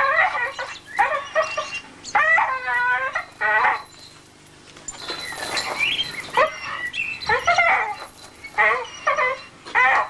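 A bull-breed terrier whining and yelping in a string of short, high-pitched cries while it hangs by its jaws from a rope, excited and straining at the hold.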